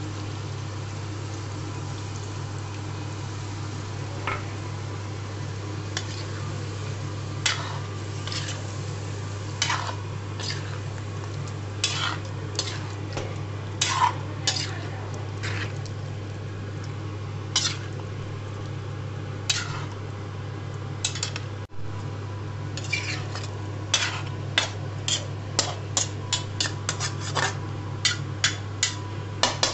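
Spatula scraping and knocking against a metal kadhai while stirring chicken curry, over a steady low hum. The strokes are scattered at first and come quicker, about two a second, in the last few seconds.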